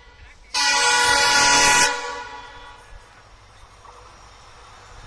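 WDP4D diesel locomotive's multi-tone horn sounding one steady blast of about a second and a half, starting about half a second in, as an acknowledgement honk. After it the sound fades to a quiet low rumble.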